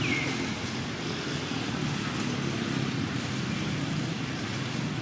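Steady low rumble of road traffic or a running vehicle engine, with a short falling chirp right at the start and a brief high thin tone about two seconds in.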